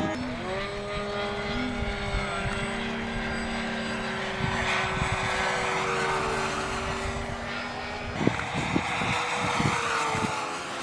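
A radio-controlled model airplane's motor whining in flight. The pitch rises sharply just after the start, holds steady, then slowly falls, while a rushing noise swells and fades. Low wind thumps hit the microphone near the end.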